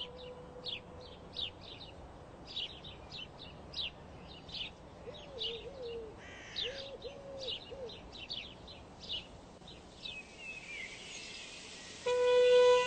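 Birds singing: many short, high chirps repeated throughout, with a low cooing call given about five times in the middle. Music with steady held notes comes in near the end.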